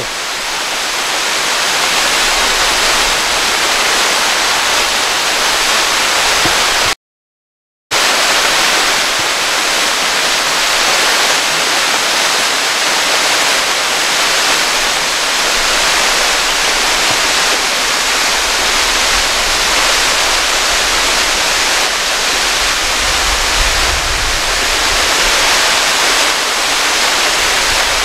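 Steady rushing hiss of a tall, narrow waterfall pouring down a rock face. The sound drops out completely for about a second, about seven seconds in.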